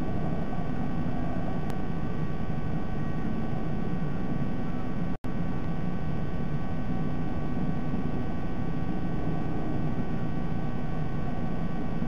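Steady rushing background noise with a faint hum, broken by a very short dropout about five seconds in.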